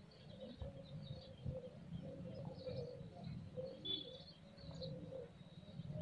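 Pigeons cooing faintly and repeatedly, with a few higher small-bird chirps over them and a low rumble underneath.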